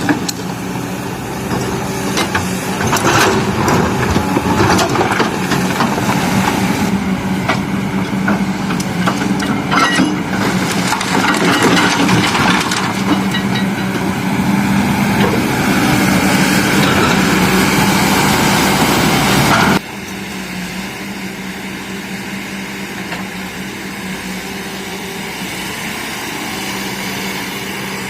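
Heavy diesel engines of an excavator and dump truck running, with stones and sand clattering as they are loaded into a steel truck bed. About two-thirds of the way in the sound drops suddenly, leaving a quieter, steady engine.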